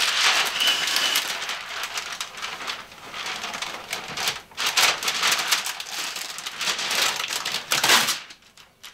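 Brown masking paper and blue painter's tape unrolling from a hand-held masking dispenser as it is drawn along a countertop edge, the paper crackling and crinkling; it stops shortly before the end.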